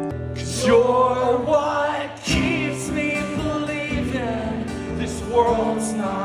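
Live band music with singing over guitar.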